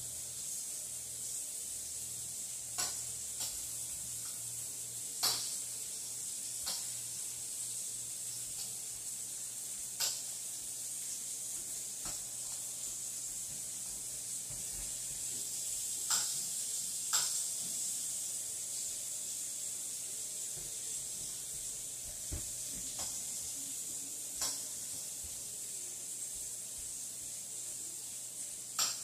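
Mushrooms sizzling steadily in a frying pan, with a few short clicks scattered through.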